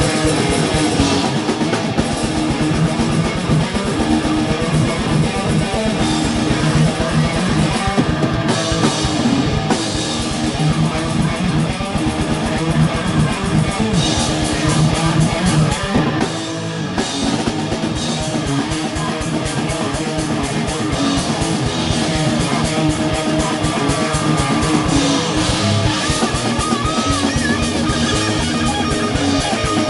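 Rock band playing live: amplified electric guitars over a drum kit, with a short drop in the drums a little past halfway.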